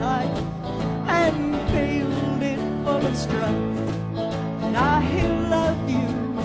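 Country song performed live: a woman singing with acoustic guitar accompaniment.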